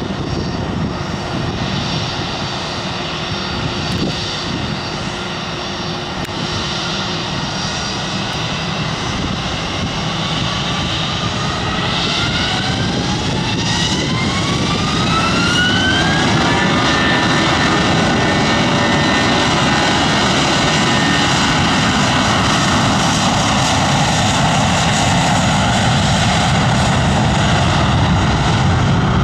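Airbus A321-231's two IAE V2500 turbofans spooling up for takeoff. A whine rises steadily in pitch from about ten seconds in and levels off about sixteen seconds in, as the engines settle at takeoff thrust and run loud and steady for the takeoff roll.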